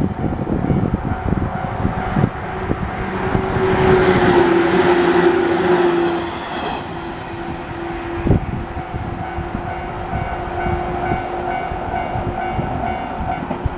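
JNR 113/115-series electric train passing over a level crossing, its wheels clattering steadily over the rail joints, loudest a few seconds in as the cars go by. A steady ringing tone runs alongside, typical of the crossing's warning bell.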